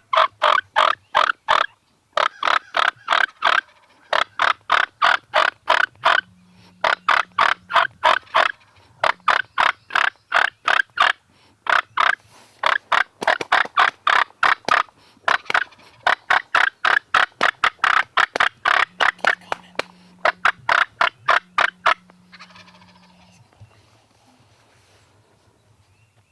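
Wild turkey gobbler gobbling loudly, about nine rattling gobbles in quick succession, each running a second and a half to three seconds, before falling silent near the end.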